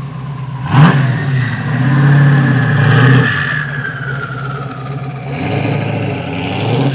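Sports car engine catching with a sharp crack about a second in, then revved up twice and once more near the end, with a high whine above it that slowly sinks as the revs settle.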